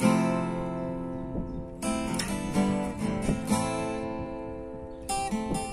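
Steel-string acoustic guitar being strummed. A chord struck right at the start rings and fades, a run of strums follows about two seconds in, and fresh strums come near the end.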